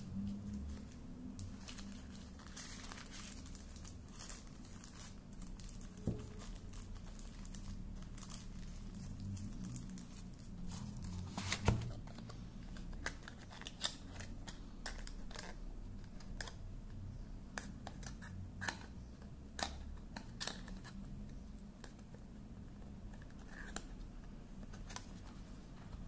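Clear plastic wrapping crinkling and a small cardboard box being handled, with scattered irregular clicks and taps; the sharpest knock comes a little before halfway through.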